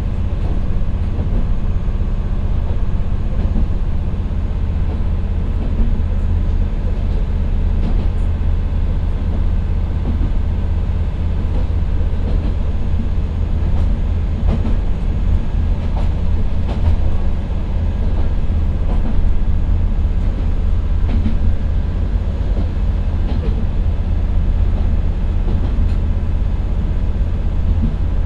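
Inside the cabin of a diesel railcar running steadily uphill at about 40 km/h. Its Nissan Diesel PE6HT03 six-cylinder engine drones under load on the climb, with rolling noise and occasional faint clicks from the wheels on the track.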